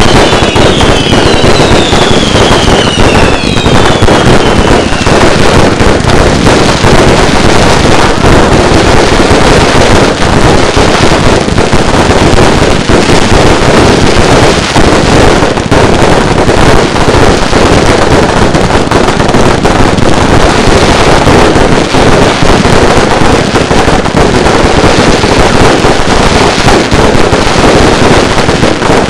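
Fireworks display: a loud, dense, unbroken barrage of bangs and crackling, with several falling whistles over the first few seconds.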